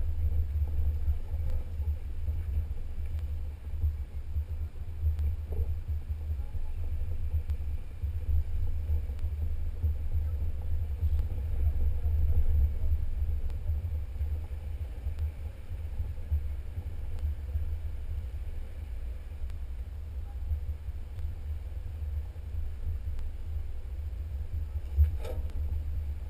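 Low, muffled rumble of a Jeep driving slowly along a rough dirt trail, picked up by a camera mounted on its hood. There is one sharp knock near the end.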